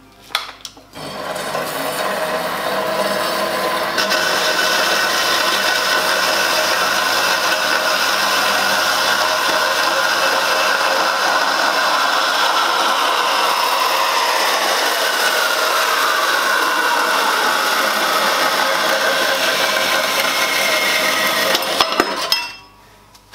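Portable metal-cutting band saw cutting through stainless steel exhaust tube. The blade runs with a steady rasping grind, growing louder a few seconds in as it bites, with a ringing tone that slides down in pitch about halfway through. It stops abruptly just before the end as the piece is cut off.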